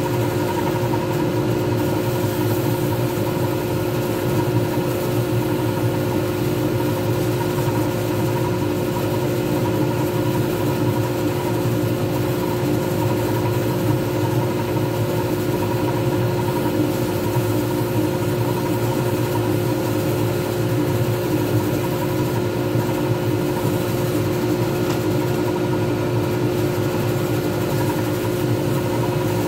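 Lathe running steadily, spinning a resin pen blank while a sanding pad is held against it; a constant motor hum with a few steady tones that doesn't change.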